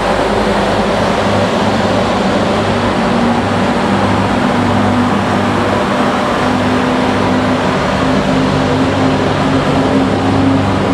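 KiwiRail EF-class electric locomotive passing close by, giving a steady electric hum made of several held tones over a wide hiss. One of the hum tones steps up in pitch about halfway through.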